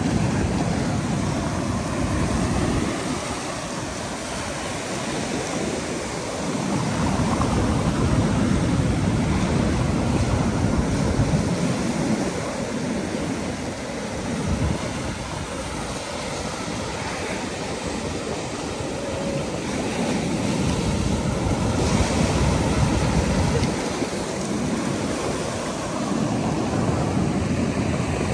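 Sea waves surging and washing over a concrete seawall, a continuous rushing of surf. Wind buffets the microphone in gusts, so the low rumble swells and drops every few seconds.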